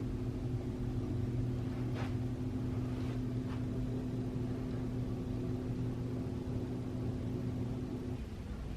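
A steady low motor hum that stops shortly before the end, with a few faint short higher sounds over it.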